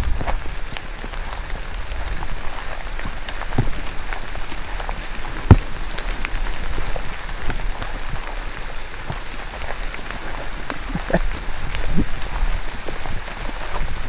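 Steady rain with scattered louder drops ticking close by, and one sharp knock about five and a half seconds in.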